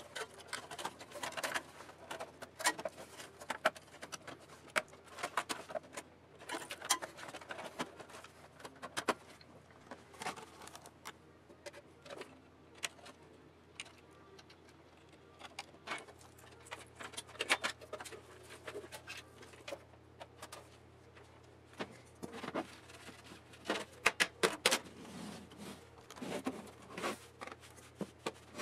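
Hands handling cables and plastic connectors inside an open desktop PC case: irregular clicks, taps and rustles, some sharper and louder than others.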